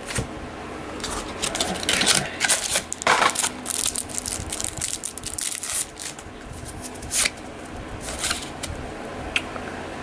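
Trading cards being handled and flipped through by hand: irregular soft flicks, slides and rustles of card stock.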